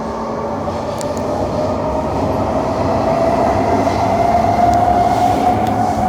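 Kawasaki C151 metro train accelerating on an underground line: steady rail running noise with a motor whine that rises slowly in pitch and grows louder.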